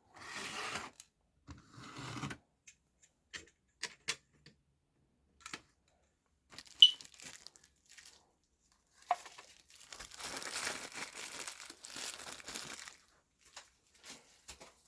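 Handling of small plastic model railway coaches: scattered light clicks and ticks with rustling, a sharp click about seven seconds in, and a longer stretch of crinkly rustling from about ten seconds in.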